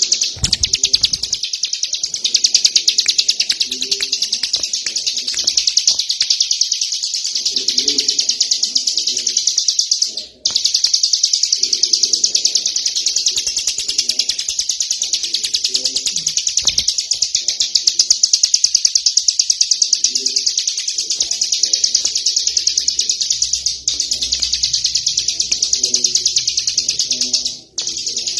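A ciblek gunung (a prinia) singing its rapid, machine-gun-like trilling song ("ngebren"): a long unbroken run of fast high notes that stops briefly only twice, about ten seconds in and near the end.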